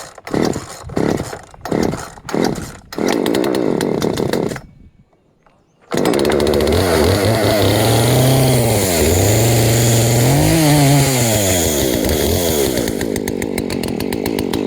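Poulan Pro 16-inch two-stroke chainsaw sputtering in a few short bursts, running briefly and cutting out. Then, about six seconds in, it starts suddenly, is revved up and down twice, and settles to a lower idle near the end.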